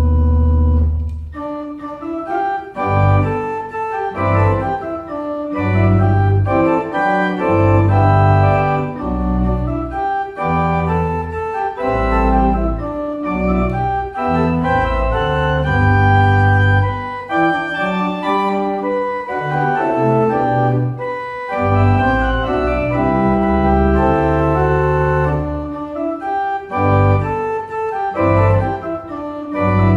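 Pipe organ playing: a full held chord that releases about a second in, then a moving passage of sustained notes over a deep pedal bass line.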